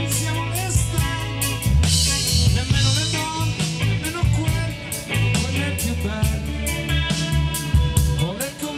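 Live band music: a man singing into a handheld microphone over a drum kit and band, the drums keeping a steady beat.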